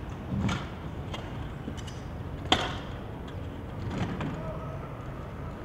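Sharp knocks over steady background noise: one loud clack about two and a half seconds in, with duller thumps near the start and about four seconds in.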